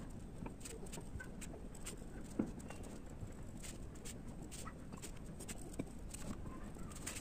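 Faint scattered clicks and taps of a plastic ruler and pencil on drawing paper, with one louder knock about two and a half seconds in as the ruler is set down.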